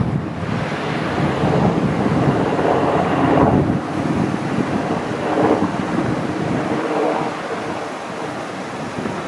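HH-60G Pave Hawk helicopter flying overhead: a rumbling rotor and engine noise that swells and fades several times.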